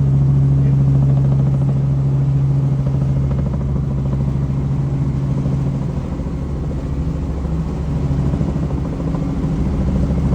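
Helicopter engine and rotor drone inside the cabin in flight: a loud, steady low hum with one strong deep tone.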